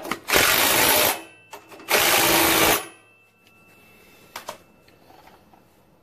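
Cordless impact driver run in two bursts of just under a second each, driving home the two bolts of a plow-angle bracket on the tractor's frame. A single light click follows a couple of seconds later.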